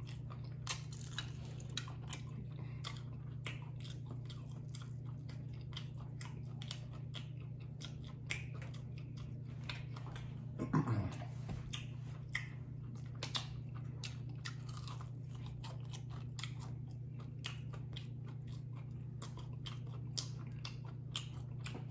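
Close-up chewing and biting of crunchy fried chicken wings: crisp crunches and wet mouth clicks in quick succession, over a steady low hum.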